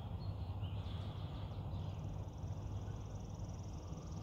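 Rural field ambience: a low steady rumble of wind on the microphone, a few bird chirps, and from about two seconds in a long, high, steady trill that runs on.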